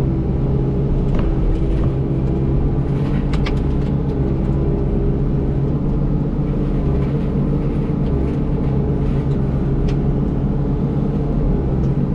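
Yanmar SV100 excavator running steadily under the work of its Fecon forestry mulching head, a constant engine drone with a couple of light ticks.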